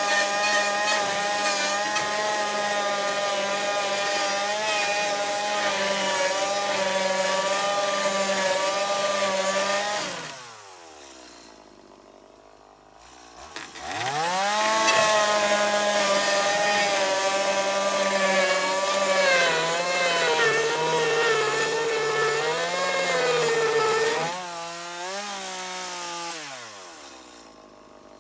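Chainsaw running at high revs, cutting into a fiberglass boat's transom, its pitch sagging and wavering under load. About ten seconds in the revs fall away. About three seconds later the saw revs back up and cuts again, then drops to a lower speed and winds down near the end.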